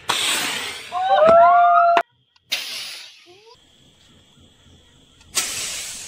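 Small firework rockets launched from a remote-controlled launcher: a loud hissing whoosh at ignition, then rising whistles as they climb, cut off abruptly at about two seconds. Another hissing launch follows and fades, and a third loud whoosh comes near the end.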